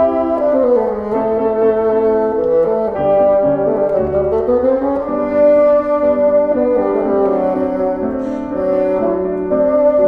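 Bassoon playing a continuous melodic solo line with piano accompaniment.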